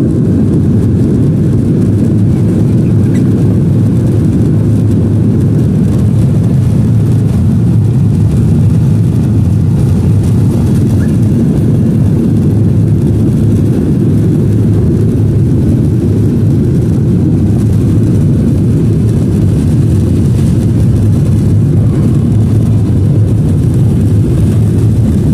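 Steady low rumble inside the cabin of a Boeing 737-800 taxiing, its CFM56 jet engines running at idle.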